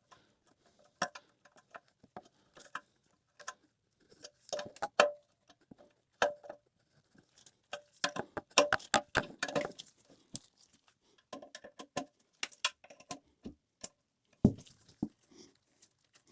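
Irregular metallic clicks and clinks of a wrench or channel-lock pliers working the nuts and washers off a toilet's floor bolts, in clusters of quick taps.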